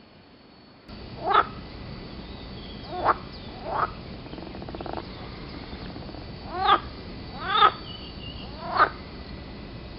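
Green frogs (Pelophylax water frogs) croaking: six short calls, each a quick bending note, spaced irregularly over a steady background hiss that starts about a second in.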